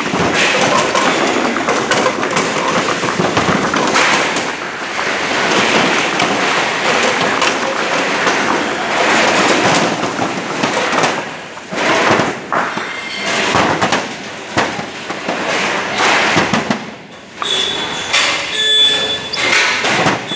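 Frozen whole mangoes clattering and knocking against one another and a stainless steel table as they are pushed and handled, a dense run of hard knocks.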